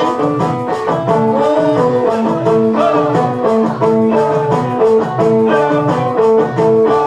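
Loud dance music: a melody of short, repeated notes over a steady beat.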